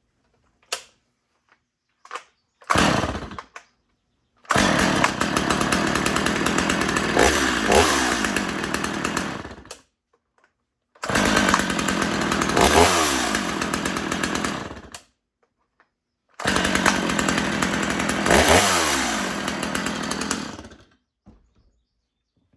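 Stihl MS250 45cc two-stroke chainsaw engine firing briefly, then running in three separate stretches that each end abruptly. The throttle is revved up and back once in each stretch.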